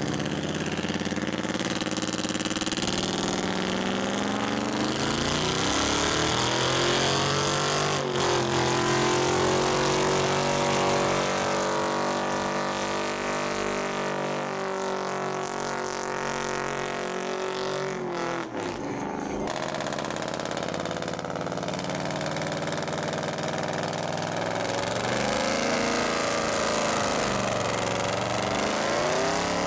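Chevrolet Silverado Z71 pickup's V8 revved up over several seconds and held at high rpm through a smoky burnout, then dropping off. After a break, a white full-size SUV's engine revs up and down as it spins its rear tyres in a second burnout.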